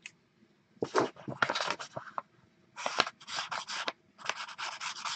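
Felt-tip marker scribbling back and forth across a sheet of paper, crossing out a line of writing, in three bouts of quick scratchy strokes.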